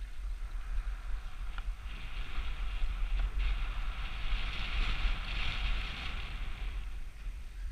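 Skis hissing through powder snow, the hiss swelling from about two seconds in and fading near the end, over a steady low rumble of wind buffeting the microphone.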